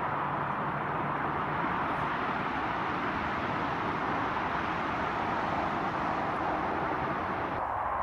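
Steady, even rushing background noise with no distinct events, which changes abruptly near the end.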